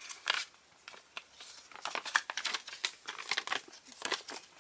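Packaging from a toy box crinkling in irregular small crackles as it is handled.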